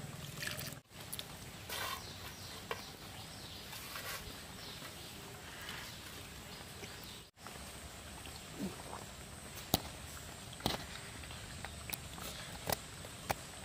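People eating rice and fish curry with their hands: scattered wet smacks, clicks and chewing over a steady outdoor hiss. The sound cuts out completely twice, briefly.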